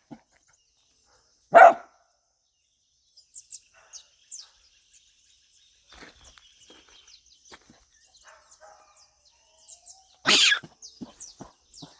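A dog barks once, sharply, about a second and a half in. Faint high chirps, like birds, follow, and a loud burst of sound comes near the end.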